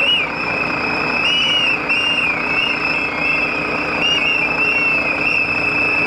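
Many protest whistles blown at once: a continuous shrill, warbling chorus of whistles over a steady rush of crowd and outdoor noise.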